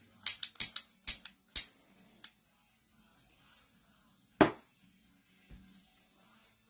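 A quick run of light clicks and taps from objects being handled on a work table, then one louder, sharper knock about four and a half seconds in and a softer one a second later, over faint background music.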